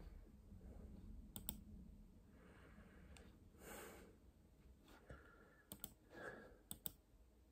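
A person with the hiccups breathing quietly. Several faint, sharp clicks come in close pairs about a second and a half in and again near the end, with soft breaths between them.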